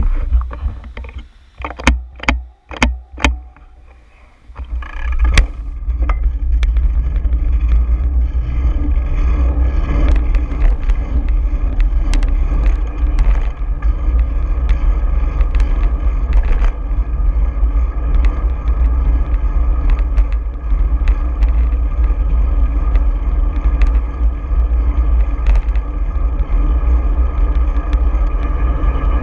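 A few sharp clicks in the first three seconds, then from about five seconds in, loud steady wind noise on the microphone of a handlebar-mounted camera as the bicycle rides along a city street, mixed with tyre and traffic noise.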